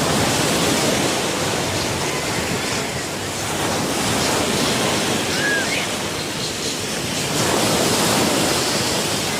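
Sea waves washing onto a sandy beach, swelling as a wave breaks about a second in and again near the end.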